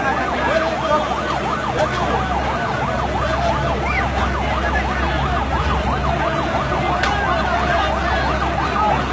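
Emergency vehicle siren in a fast yelp, its pitch sweeping rapidly up and down several times a second, over the noise of a large crowd.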